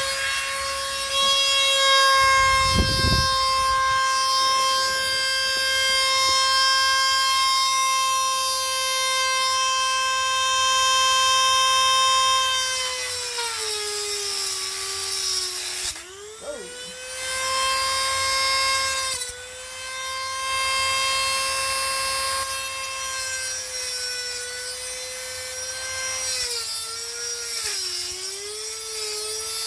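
A small high-speed power-tool motor running with a steady high whine, its pitch sagging as it is loaded around the middle and again near the end, stopping briefly twice and starting again. A short low rumble about three seconds in.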